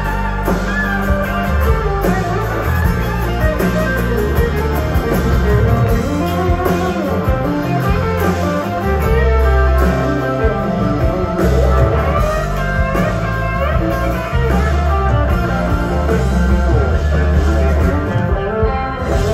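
Live rock band playing electric guitars over bass and drums, heard from the audience in the hall.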